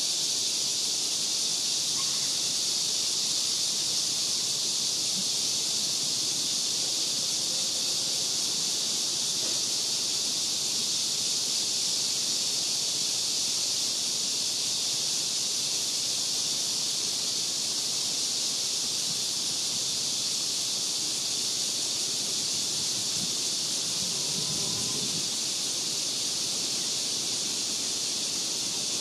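A steady, high-pitched chorus of insects: a dense, unbroken drone that holds at one level.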